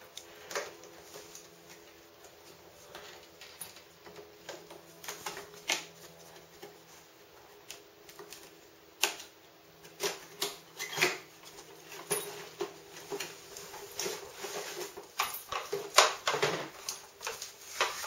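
Irregular clicks, taps and rustles of a cardboard box and its plastic contents being handled on a tile floor, growing busier and louder near the end as the plastic bone-shaped puzzle toy is taken out and set down.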